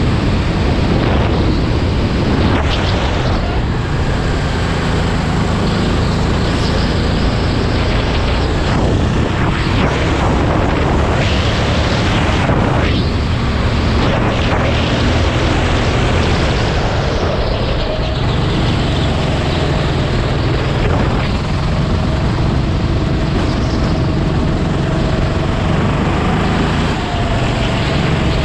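Sodi RT8 rental kart's 390cc single-cylinder four-stroke engine running hard through a lap, heard from onboard, its pitch rising and falling as the driver accelerates out of and slows into the corners, with wind rush on the microphone.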